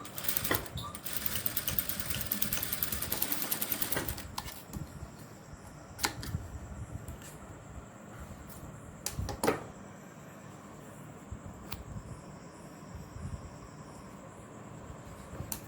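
Sewing machine running a short burst of fast, even stitching for about four seconds, then stopping. A few single clicks and knocks follow as the work is handled.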